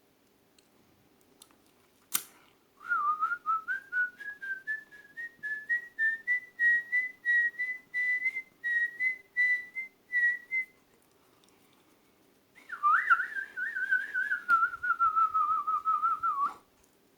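A person whistling with the mouth in imitation of birdsong. After a click about two seconds in comes a run of short chirping notes, about three a second, slowly climbing in pitch. After a pause, a warbling trill slides down and stops suddenly.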